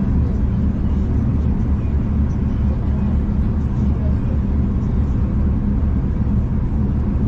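Steady low rumble of a passenger train running along the line, heard from inside the carriage, with no change in pace.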